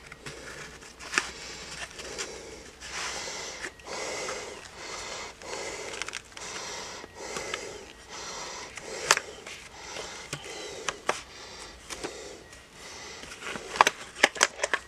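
Handling noise from a nylon electronics repair tool roll and its clear plastic bit case: a run of soft rustling swishes with a few sharp clicks, more of them near the end as the plastic case is lifted out.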